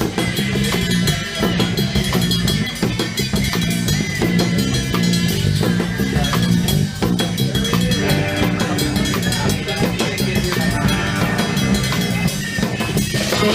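Surf rock music from a band, with a busy drum kit and a repeating bass line throughout.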